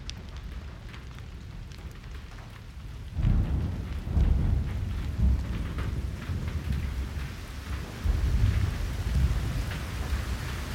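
Rain falling with thunder rumbling. A louder roll of thunder comes in about three seconds in and rumbles on in waves.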